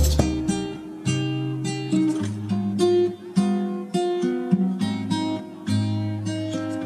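Background music: an acoustic guitar picking out single notes and chords, each left to ring and fade.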